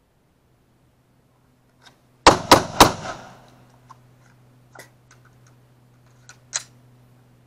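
Three quick pistol shots from a Glock 20 in 10mm Auto, about a quarter second apart, a little over two seconds in, followed by a few faint clicks.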